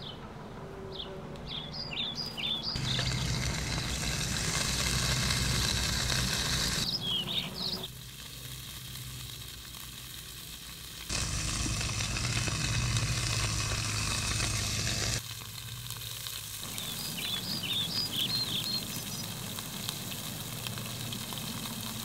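Food sizzling and frying in a pan on a portable gas stove, in stretches about four seconds long that start and stop abruptly. Short bird chirps come between them.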